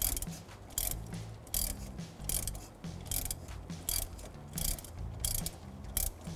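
A hand ratchet with a 19 mm socket turns the centre forcing screw of a harmonic balancer puller. Its pawl clicks in short bursts a little under once a second as the handle is swung back and forth, and the puller is drawing the crank pulley off the crankshaft.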